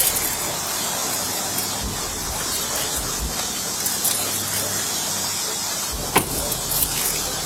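Steady outdoor background noise with a low hum, typical of vehicles idling and traffic in a parking lot, and one sharp click about six seconds in.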